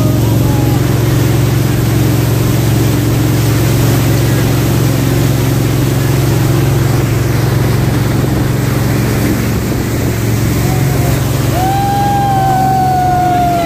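Jet boat's engine running steadily, with the rush of water around the hull. Near the end a long, slightly falling high tone sounds over it for about two seconds.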